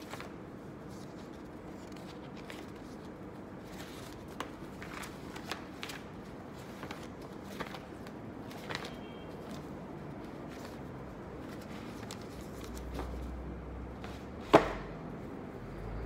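Paper envelopes being leafed through and sorted by hand: soft rustling with scattered small taps of paper on paper. About three-quarters of the way through comes one sharp knock, much the loudest sound.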